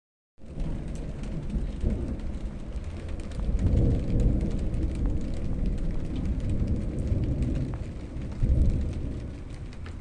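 Thunder rumbling on and on, swelling twice and easing near the end, over light rain.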